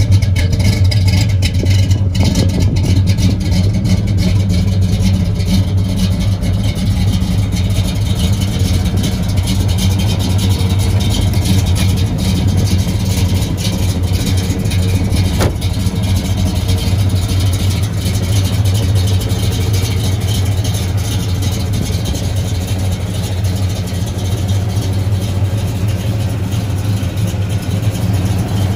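1971 Pontiac LeMans GT37's V8 engine idling steadily at an even pitch.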